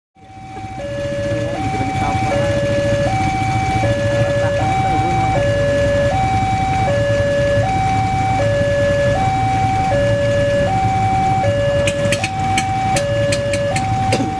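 Railway level-crossing warning alarm sounding two alternating tones, switching about twice a second, over the low rumble of an approaching train. Sharp clicks join near the end.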